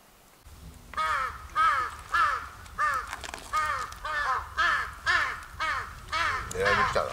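A bird calling over and over in short, harsh calls, about two a second, starting about a second in.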